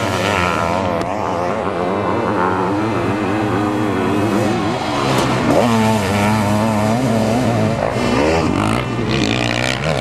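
Sidecar motocross outfits' engines revving on a dirt track, their pitch rising and falling as the throttles open and close, with more than one engine heard at once.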